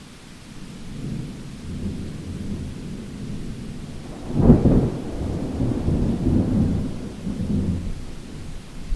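Thunderstorm: thunder rumbling over the hiss of rain, with a sharp loud crack about halfway through that rolls on and dies away near the end.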